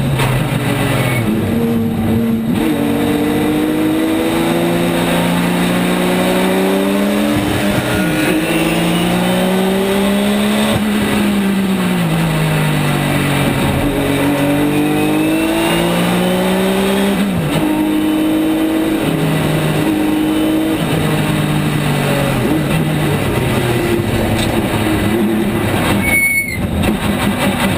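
Porsche 911 race car's flat-six engine heard from inside the cockpit at racing speed, revving up through the gears and dropping in pitch on each shift and under braking for the corners.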